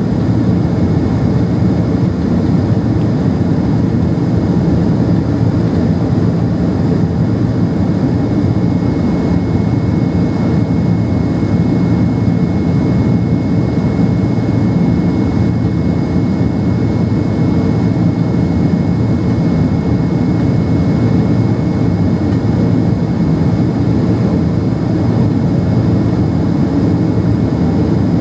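Boeing 767-300ER in its climb, heard inside the cabin: a steady low rumble of jet engines and rushing air, with a faint high whine over it.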